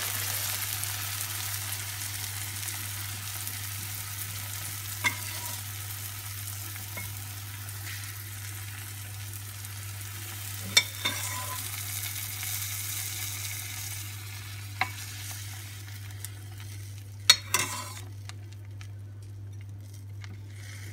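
Hot puff-pastry şöbiyet sizzling as cold sugar syrup is ladled over it; the hiss slowly dies away as the syrup soaks in. A few sharp clinks of the metal ladle against the glass dish, the loudest near the end.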